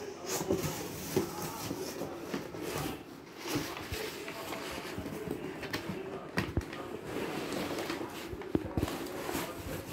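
Cardboard shipping box being opened by hand: flaps folding back and crumpled kraft-paper packing rustling and crinkling, with scattered light knocks of cardboard being handled.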